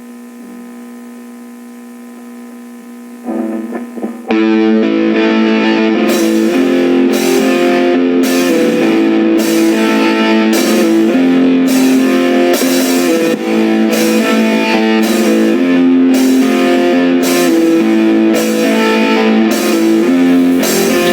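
Instrumental intro of a nu-metal song: a quiet held note for about three seconds, then a heavy electric guitar riff with drums kicking in loudly about four seconds in and repeating.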